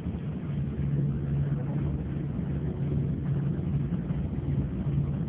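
Coach engine and road noise heard from inside the bus cabin: a steady low drone with a constant hum.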